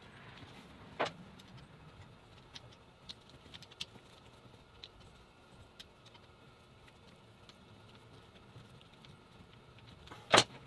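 Light clicks and taps of a screwdriver and metal parts being handled while a small water pump is screwed down onto a tank frame, with a sharp knock about a second in and a louder one near the end.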